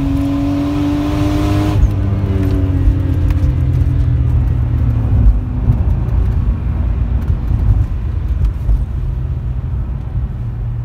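Turbocharged BMW S54 3.2-litre straight-six engine pulling hard under boost, then lifting off about two seconds in; the engine note falls and fades into a low rumble.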